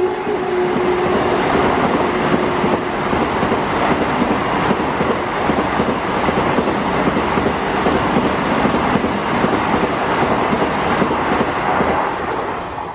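Vande Bharat Express electric trainset passing close by at speed: a steady rush of air and wheel-on-rail noise with rapid clatter. The tail of its horn slides down in pitch and fades out in the first few seconds. The sound drops away abruptly at the end.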